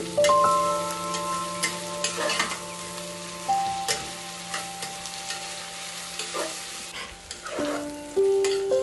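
Sliced onions frying and sizzling in ghee in an aluminium pressure cooker, stirred with a spatula that scrapes and clicks against the pan. Soft background music with long held notes plays underneath.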